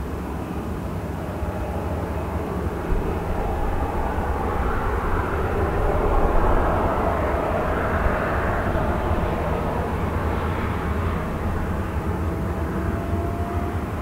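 Boeing 737-800's CFM56-7B jet engines at taxi power: a steady jet whine and rush over a low rumble. It grows louder to a peak in the middle as the airliner passes, then eases off.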